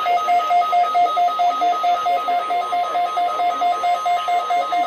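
A weather radio receiver's alert alarm beeping rapidly, about four to five short electronic beeps a second, which signals that an alert has come in over NOAA Weather Radio.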